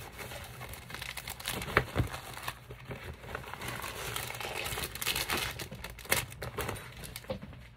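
Plastic and cellophane packaging crinkling and rustling as craft items are handled and pulled out of a bag, in irregular crackles with a couple of sharper snaps about two seconds in.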